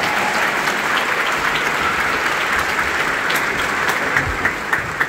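Audience applauding in a concert hall, with one person's claps close by standing out in the second half.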